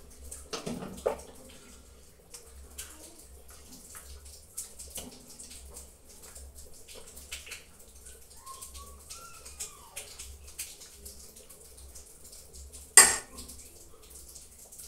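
A metal spoon ladling soup from a steel cooking pot into a bowl: liquid slopping and dripping, with small scrapes and taps of the spoon on the pot. One loud metallic clank near the end.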